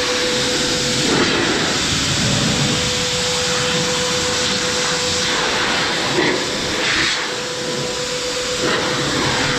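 Heated car-drying air blower running loud, a steady rush of air with a constant high motor whine, blasting beaded water off the car's paint. The rush changes briefly a few times as the nozzle moves over the car.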